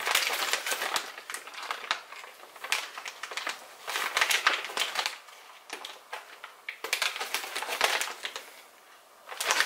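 Clear plastic parts bag crinkling as it is handled in the hands, in several separate spells of crackling.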